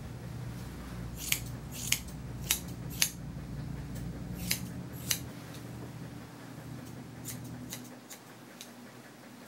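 Grooming shears snipping through dog hair: six sharp, crisp snips spaced about half a second apart in the first five seconds, then a few fainter snips near the end.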